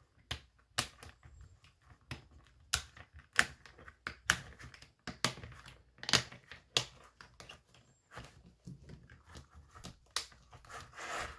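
Punched paper pages being pressed onto the plastic discs of a disc-bound Happy Planner, giving irregular sharp clicks and snaps with paper rustling. The pages are hard to get in.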